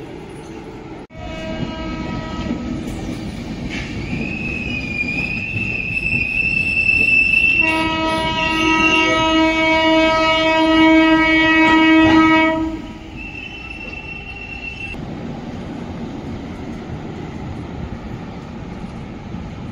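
A train horn sounds long and steady from about a second in, grows louder in its last few seconds and stops about two-thirds of the way through. Partway along, a high thin squeal slowly rises in pitch. Under it all runs the rumble and clickety-clack of the train on the rails.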